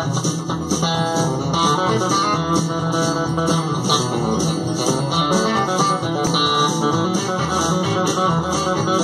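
Nash TC-68 Telecaster-style electric guitar played dry with no effects, in a fast country chicken-picking style of quick plucked, snapped notes.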